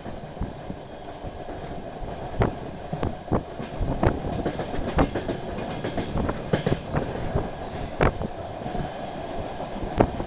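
DR1AMv diesel multiple unit running at speed, heard from on board: a steady drone and rumble, with the wheels clicking irregularly over the rail joints.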